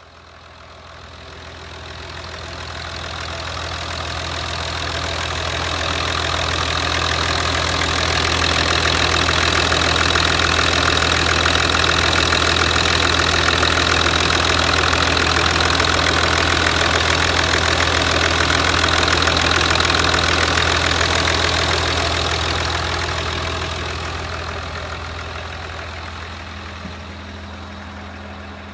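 Land Rover 2.7 TDV6 V6 turbodiesel idling steadily, running on cleaning fluid fed by an injector-cleaning machine. The sound swells up over the first several seconds and fades away toward the end.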